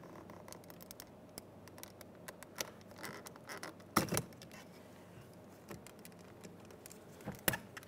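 Faint scattered clicks and scrapes of a pocket screwdriver prying a Chevrolet Trailblazer's plastic window switch bezel out of its door panel. The louder click about four seconds in comes as the bezel's locking tab lets go and the switch lifts free, and a few more clicks come near the end as it is handled.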